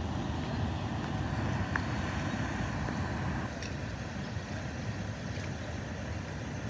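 Steady low rumble of idling vehicle engines in street ambience, a little quieter from about halfway through.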